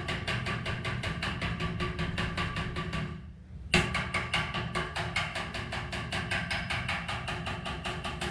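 Welder pulse-welding the Toyota Tundra's lower quarter-panel sheet metal: a rapid, even crackle of about six pulses a second over a steady buzz. It stops about three seconds in, then starts again with a sharp onset half a second later.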